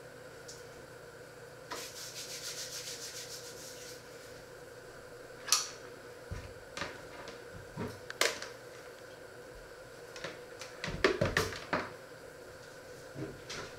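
Handling noises on a wooden worktop: a rasping scrape for about two seconds, then scattered light knocks and clunks, with a busier cluster near the end, as an electric hand mixer with dough hooks is picked up and set down.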